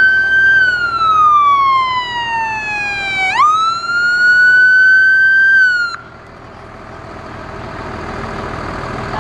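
Fire engine siren wailing: one long slow fall in pitch, a quick rise back up a little after three seconds in, then it cuts off suddenly about six seconds in. After that the fire truck's engine runs on, growing louder as it comes nearer.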